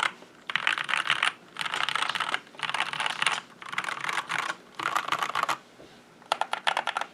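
Typing on a Keychron C2 mechanical keyboard: quick runs of rapid keystroke clacks, each under a second, with short pauses between them and a slightly longer pause about six seconds in.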